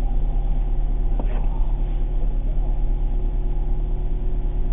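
Steady low drone of a vehicle's engine running, with one short click about a second in.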